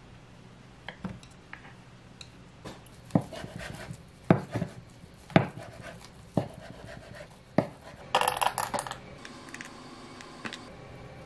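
A kitchen knife chopping down through a rolled omelette onto a wooden cutting board: five sharp knocks about a second apart. Near the end comes a short, denser burst of rattly noise, and before the cuts there are faint light clicks of chopsticks on plastic containers.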